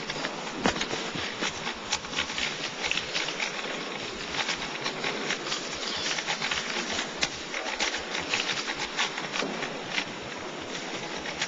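Rubik's Cube being turned at speed in a timed solve: a rapid, irregular run of plastic clicks and rattles over the steady murmur of a hall.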